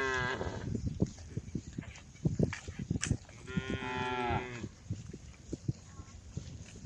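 Cows mooing: one moo tails off right at the start and another full moo of about a second comes near the middle, with scattered short low thuds in between.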